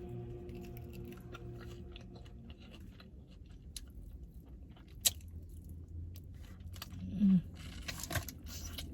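Close-up eating sounds: chewing and biting with crisp crunches and wet mouth clicks, one sharper click about halfway through and a short hum from the eater about two seconds before the end.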